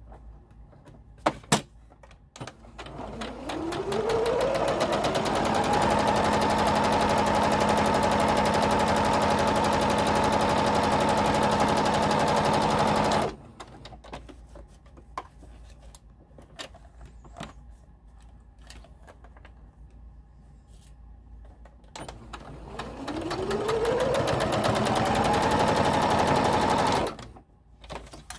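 Domestic electric sewing machine stitching fabric: the motor whine rises in pitch as it speeds up, holds steady for several seconds, then stops suddenly. After a pause with a few small clicks it runs up again the same way and stops near the end.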